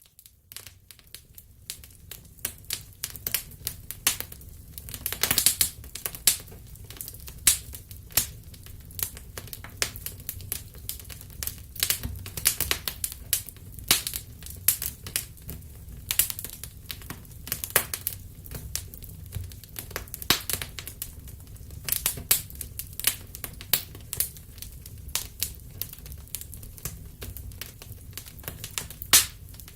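Wood fire crackling in a fireplace: irregular pops and snaps, several a second, over a low steady rumble, fading in at the start.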